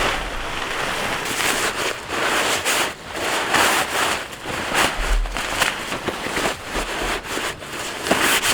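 Rain pattering on a tarp shelter, with dense irregular crackles, and wind buffeting the microphone twice.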